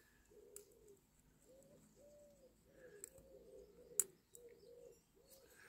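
Near silence with a bird cooing faintly in the background, a low call repeated over and over. A small sharp click sounds about four seconds in.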